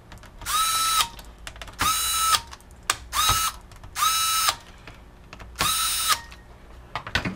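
Small electric screwdriver whirring in five short bursts of about half a second each, each rising in pitch as the motor spins up, driving the mounting screws of a laptop CPU heatsink.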